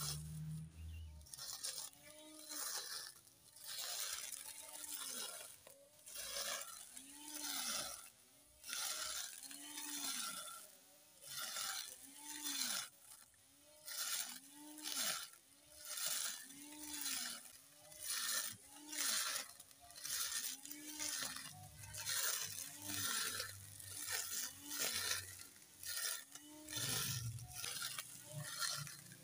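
Cordless battery grass trimmer with a steel blade cutting rough grass. The motor's whine rises and falls about once a second, each time with a burst of hissing noise from the grass being cut.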